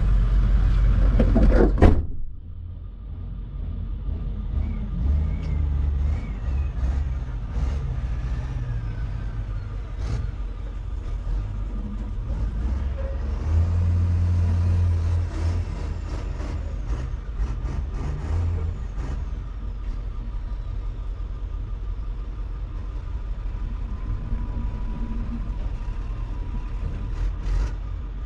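Vehicle on the road hauling a strapped-down scrap car: a steady low engine and road rumble, louder for about two seconds near the start, then swelling again for a couple of seconds about halfway through.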